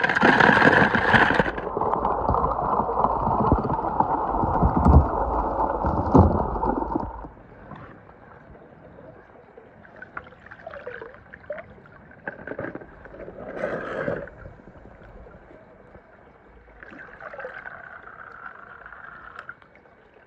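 Swimming-pool water sloshing and gurgling as a skimmer net and a hand scoop toy trains out of the pool. It is loud for about the first seven seconds, then gives way to quieter, scattered splashes.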